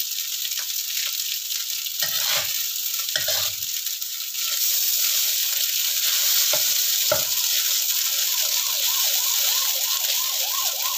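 Rice vermicelli stir-frying in a wok: a steady sizzling hiss, with a metal spatula and ladle scraping and knocking against the pan a few times as the noodles are tossed.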